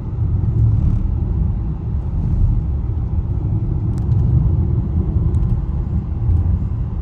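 Car driving on a rough road through a construction zone, heard from inside the cabin: a steady low rumble of tyres and engine that rises and falls unevenly as the car rides over the bumpy surface.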